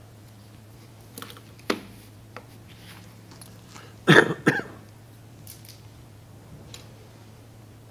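A person coughs twice in quick succession about four seconds in, after a few small clicks and knocks, over a steady low electrical hum.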